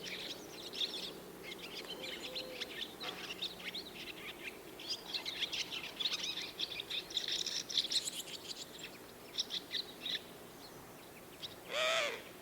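Swallows twittering and chirping in a rapid, continuous chatter, in a morning countryside ambience. Just before the end a single louder bird call with several pitches stands out.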